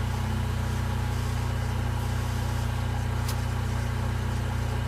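Jeep Wrangler's 2.5-liter four-cylinder engine idling steadily while it drives the engine-mounted on-board air compressor during tire inflation.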